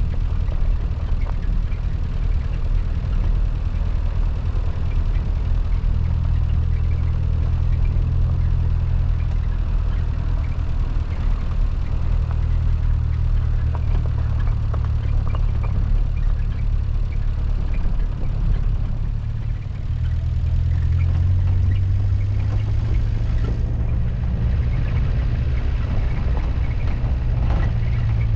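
Car engine and road noise while driving: a steady low drone that shifts a little in pitch a few times.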